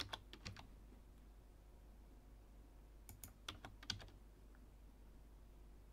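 Faint computer keyboard keystrokes: a few quick taps at the start and another short cluster about three to four seconds in, typed as shortcut keys.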